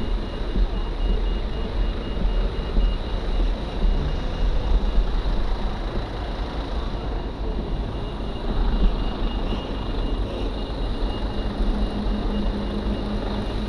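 Honda CMX500 Rebel's parallel-twin engine idling under a steady low rumble of street traffic, with a lorry's diesel engine getting louder near the end as it pulls up close.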